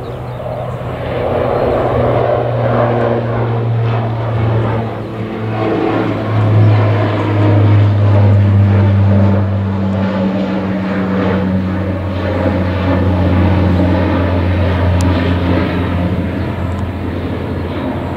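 Jet airliner's engines at takeoff thrust: a steady roar with a low hum that builds over the first couple of seconds, is loudest about seven to ten seconds in, then slowly eases.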